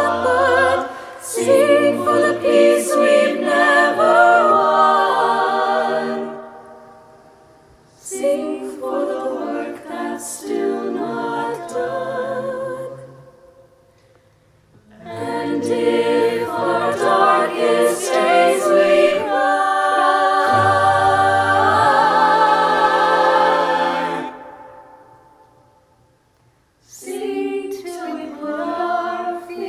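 Mixed-voice a cappella virtual choir singing in harmony, with a low bass part under the upper voices. It goes in four phrases, with brief quiet pauses between them.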